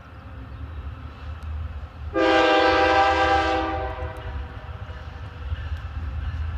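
BNSF diesel freight locomotive's air horn sounding one blast of about a second and a half, several tones at once, over the low rumble of the approaching train.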